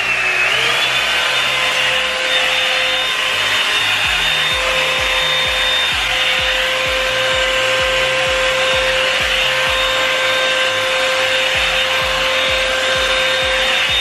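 Revlon One Step hair dryer brush running on its high setting: a loud, steady blow-dryer whine with rushing air. The pitch rises briefly at the start as the motor comes up to speed, then holds while the brush is drawn through the hair.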